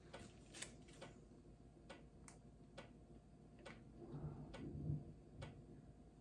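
Near silence: quiet room tone with faint, irregular ticks, roughly one every half second to a second, and a soft low hum about four seconds in.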